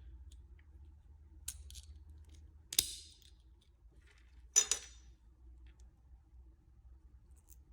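Pliers being worked by hand: two sharp metallic snaps with a short ring, nearly two seconds apart, after a fainter click.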